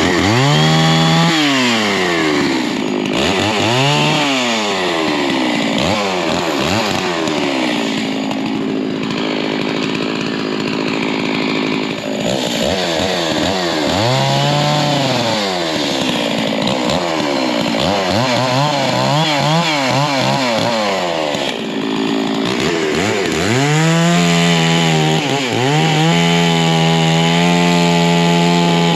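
Stihl chainsaw cutting firewood at full throttle, its engine pitch rising and falling over and over as it speeds up and slows in the cut, with a long steady high-revving stretch near the end.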